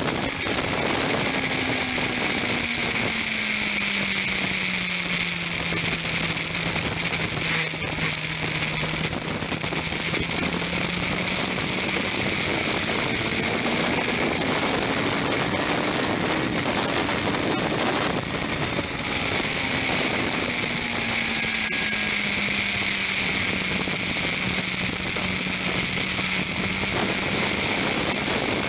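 Onboard sound of a Yamaha R1 sportbike at speed on a wet track: a loud, steady wind and spray rush over the fairing, with the engine note underneath dropping in pitch, rising again around the middle and falling back to hold near the end.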